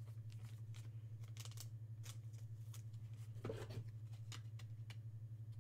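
Faint scattered clicks and light rustles of trading cards being handled and set down on a table, over a steady low hum.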